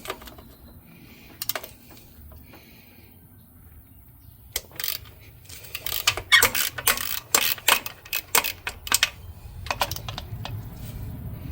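Metal hand tools being handled: irregular sharp metallic clicks and clinks, sparse at first and densest from about halfway through.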